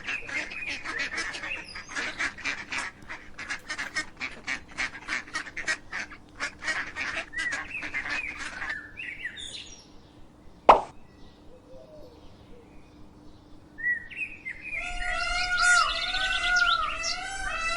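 Barnyard fowl calling: a long run of rapid, clattering calls, a single sharp click near the middle, then from about fourteen seconds a series of repeated, arching honk-like calls.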